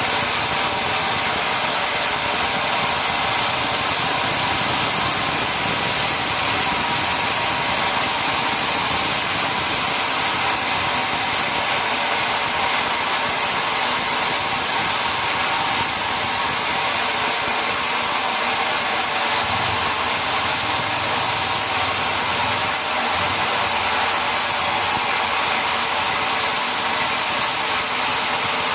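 Sawmill machinery running steadily and loudly with a constant high hiss, typical of the saw and log-handling equipment at work.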